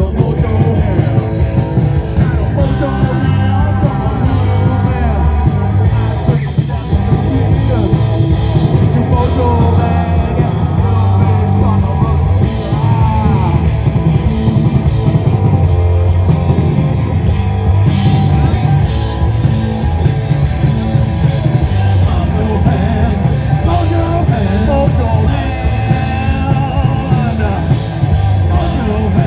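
Live metal band playing loud: electric guitar, bass and drums with vocals.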